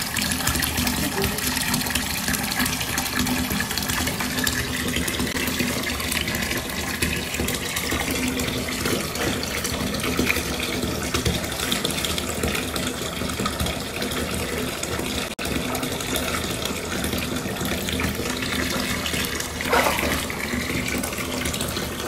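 Water running steadily into a bathtub, with a bath bomb foaming in it.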